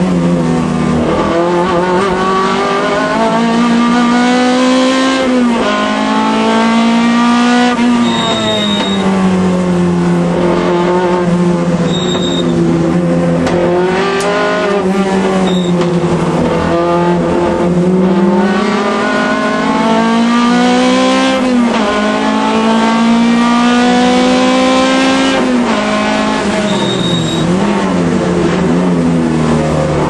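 Alfa Romeo race car engine at racing speed, its note climbing as it accelerates and dropping sharply at each upshift every few seconds, with slower falls and rises through braking and corners.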